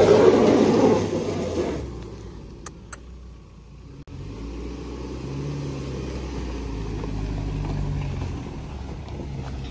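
Mahindra Thar 4x4 climbing a loose rocky trail in low gear. Engine and tyres on stones are loud close up for the first two seconds. From about four seconds in, a steadier, quieter engine note follows, its revs rising and falling as it crawls over the rocks.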